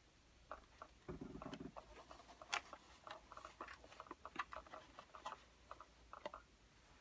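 Faint handling noises: scattered light clicks, taps and rustles as a terracotta Chia Pet planter on a clear plastic drip tray is gripped and turned, the sharpest tap about two and a half seconds in.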